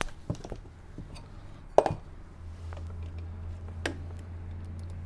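Scattered light clicks and knocks of small hard parts being handled, one sharper knock near two seconds in. A low steady hum sets in about two and a half seconds in.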